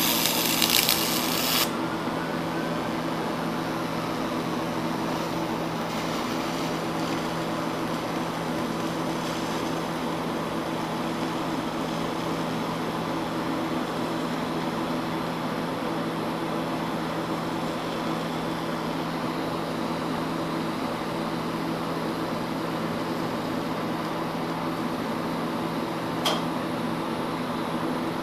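TIG welding cast iron with a nickel filler rod on DC: a harsh high-frequency arc-start buzz for about the first second and a half, then a steady hum of the welding machine and its water cooler under the quiet arc. A single sharp click comes near the end as the arc is stopped.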